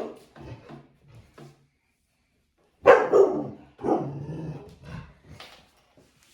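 Bernese Mountain Dog barking: a loud bark about three seconds in and another just after, with quieter, lower barks before and after.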